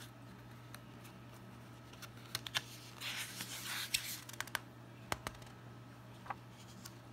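Pages of a paperback picture book being turned by hand: a rustling swish of paper about three seconds in, with scattered light clicks and taps of the pages and cover around it. A steady low hum runs underneath.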